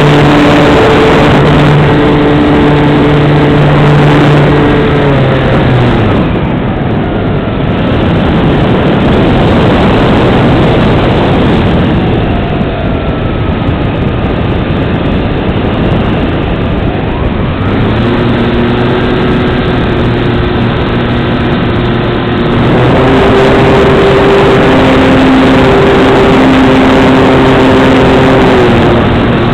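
A large RC plane's propeller and motor heard from a wing-mounted camera, a steady drone mixed with heavy wind noise. About five seconds in the throttle comes back and the pitch drops. It stays lower and quieter for a while, then the power comes back on in two steps past the halfway point.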